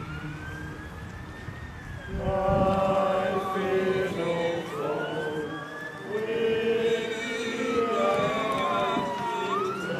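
An emergency vehicle siren wails, slowly rising and falling in pitch about twice. From about two seconds in, a crowd sings a hymn beneath it.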